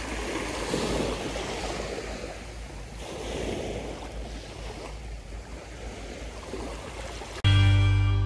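Sea water washing against the shore, with wind buffeting the microphone. About seven seconds in, a loud sustained musical tone cuts in suddenly and rings on, slowly fading.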